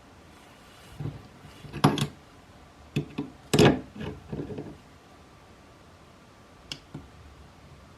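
Hard objects knocked and clattered as they are handled, a burst of several knocks in the first half, then two light clicks near the end, over a faint steady high whine.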